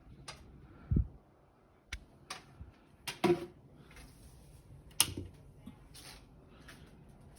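A string of irregular knocks and bangs: a heavy low thump about a second in, a run of sharper knocks around two to three seconds, and the loudest, sharpest bang about five seconds in.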